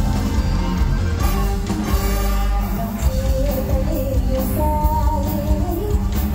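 Live Isan mor lam band music played loud through the stage speakers, with a heavy bass beat and a lead melody line that comes in about halfway.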